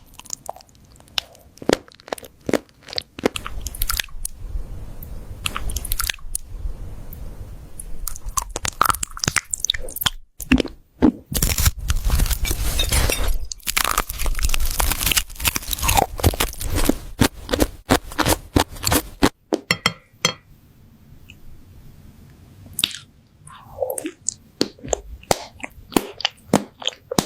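Close-miked crunchy chewing and biting of crisp food, with many sharp crackles; the crunching is densest and loudest in the middle, and sparser near the end.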